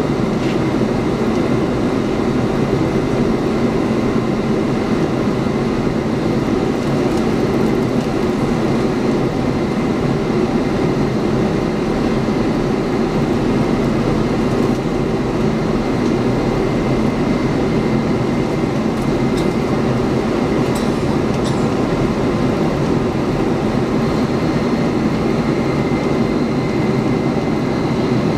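Cabin noise inside a Boeing 747-400 taxiing: a steady rumble from its turbofan engines at low thrust, with a faint high whine on top.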